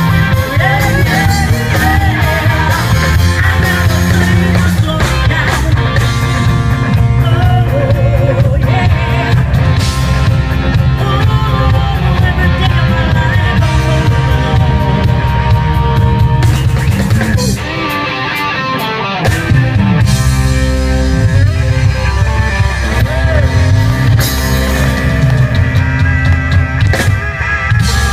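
Live rock band playing: electric guitars, bass and drum kit, with singing. About two-thirds of the way through, the bass and drums drop out for about two seconds, then the full band comes back in.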